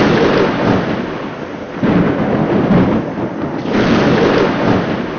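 Heavy rolling rumble of explosions in a night bombardment of a city, swelling about three times.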